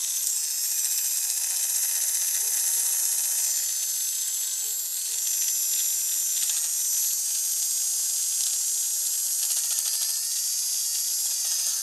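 Tiny battery-powered electric motor of a pocket-sized toy train engine running freely in the hand, a steady high-pitched whir, which cuts off suddenly at the end as it is switched off.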